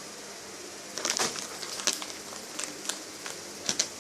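A few light clicks and rustles of small objects being handled and set down, in a small quiet room.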